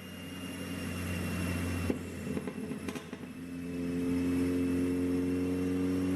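Mercedes-AMG CLA45's turbocharged 2.0-litre four-cylinder running on a dyno, with a burst of irregular crackling pops from the exhaust about two seconds in, typical of a pop-and-crackle tune. It then settles back to a steady, louder drone.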